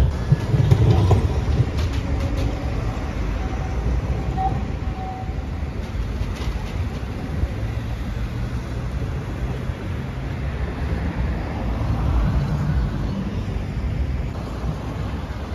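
Steady low rumble of city street traffic: cars and a tram moving through a junction.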